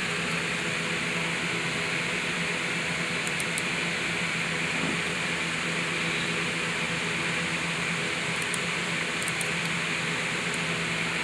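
Steady fan-like hum under a constant even hiss, with no change in level.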